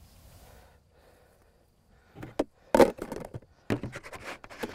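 Knocks and thuds of ballistic gelatin blocks and their moulds being handled and set down on a folding table. They start about two seconds in, with one sharp knock the loudest and a quick cluster of smaller clacks near the end.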